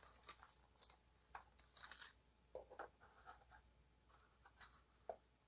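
Faint crinkling and rustling of a thin clear plastic bag and a paper packet being handled, in short irregular crackles.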